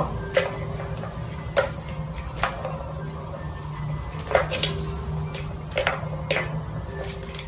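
Plastic ball knocking and clattering in the track of a three-tier plastic tower cat toy as a kitten bats it with its paw: a string of sharp knocks at uneven intervals.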